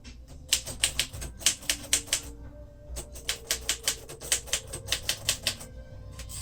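1948 Royal Quiet Deluxe manual typewriter being typed on: two quick runs of sharp key strikes, about eight a second, with a short pause about two and a half seconds in.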